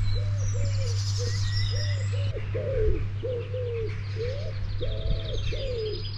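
Birdsong: a pigeon cooing in a run of short repeated notes, with small songbirds chirping and trilling higher up, over a steady low hum.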